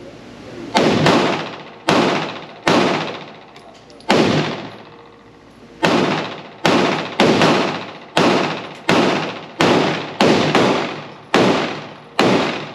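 PSA Dagger Compact 9mm pistol firing a string of about fourteen shots, each a sharp report with a long ringing tail. The shots are spaced out at first, then come faster, roughly one to two a second, in a sped-up string.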